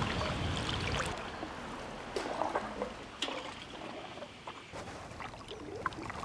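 Canoe paddle dipping and stroking through river water, with trickling drips and small splashes off the blade. A low rumble fades out about a second in.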